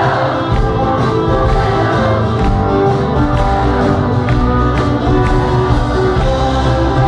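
A folk-pop band playing live in a concert hall: acoustic guitar, upright piano and violins with singing, over a steady beat of about two strokes a second.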